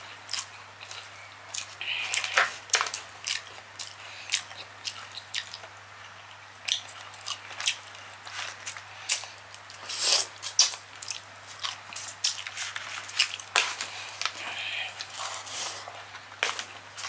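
Close-up wet eating sounds: chewing and lip smacking with many short sharp clicks and squishes, as saucy Cajun seafood and rice are eaten by hand. A faint steady low hum runs underneath.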